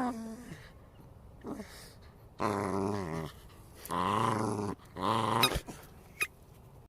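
A dog growling in several separate bouts, each a second or less long, with two short sharp clicks near the end.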